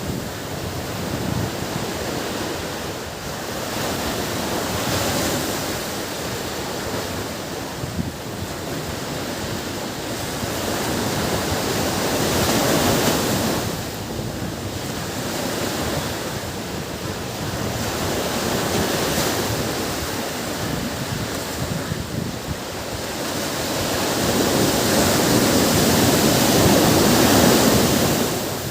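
Waves breaking on a beach: a steady rushing surf that swells and falls back every several seconds, the biggest swell near the end.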